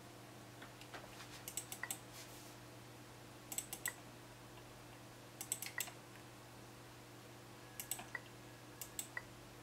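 Five quick bursts of three or four light clicks each from the buttons of a computer input device, spaced one to two seconds apart, over a faint steady hum.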